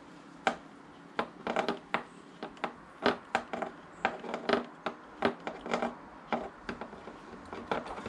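Hex key turning the screws of a motorcycle handlebar switch housing, snugging them up: a string of small, irregular clicks and taps, several a second.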